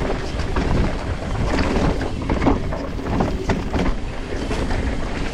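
Wind rushing over the camera microphone while a Pivot Switchblade mountain bike descends a rough dirt trail, with tyre noise and a steady run of small knocks and rattles from the bike over the ground.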